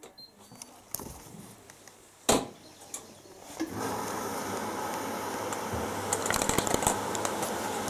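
Front-loading washing machines starting their quick wash cycles: a few sharp clicks, the loudest about two seconds in, then from about halfway a steady rushing noise with a low hum as the machines begin the main wash.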